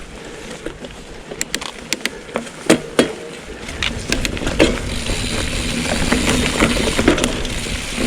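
A 2023 Trek Roscoe 7 hardtail mountain bike being ridden: scattered sharp clicks and knocks from the bike for the first few seconds, then a steady rushing noise of tyres and wind that builds from about halfway, with more knocks over bumps.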